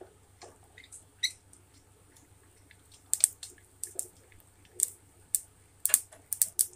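Mustard and cumin seeds popping and crackling in hot oil while a tadka for dal is tempered, with sharp irregular pops. The pops are sparse at first and come several a second from about three seconds in.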